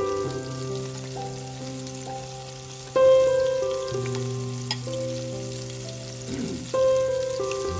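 Haddock pieces sizzling as they fry in hot oil in a frying pan, under background music of sustained chords that change every second or so, with two louder chords striking about three and seven seconds in.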